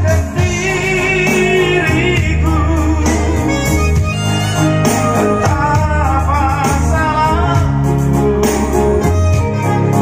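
Live song played through a PA system at a sound check: a man singing into a microphone over a Yamaha PSR-S975 arranger keyboard, with heavy bass notes from the subwoofers.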